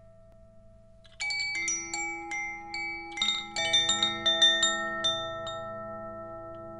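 Theta Chime in its Enlighten tuning: the bead inside the bamboo tube strikes the eight tuned metal tines. A faint ring at first, then about a second in a quick cluster of bright, overlapping notes starts, which ring on and slowly fade.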